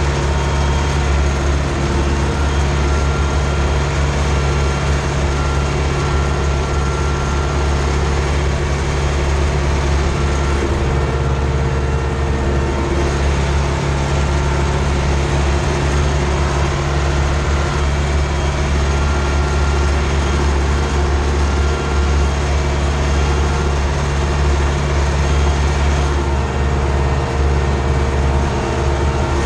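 Ursus C-360 tractor's four-cylinder diesel engine running steadily under load while pulling a field cultivator, heard from inside the cab.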